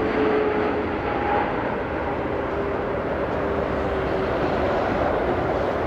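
Boeing 747-8F freighter's GEnx jet engines on final approach: a steady jet rumble with a faint whine that sinks slowly in pitch as the aircraft passes and heads away.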